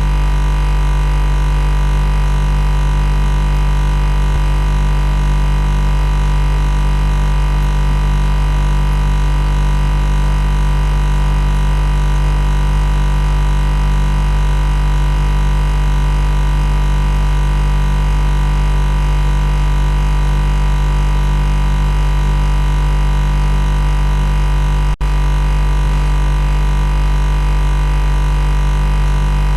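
Loud, steady machine buzz: a low drone with many overtones, unchanging, with a momentary break about 25 seconds in.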